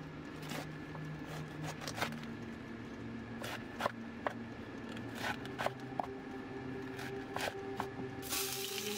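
Chef's knife slicing a head of cabbage on a wooden cutting board: irregular crisp knocks and crunches as the blade goes through the leaves and meets the board. A steady hiss comes in near the end.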